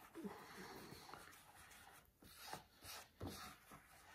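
Faint scraping of a small plastic scraping blade mixing polyester glazing putty with its cream hardener: a longer stretch of rubbing, then a few short scrapes.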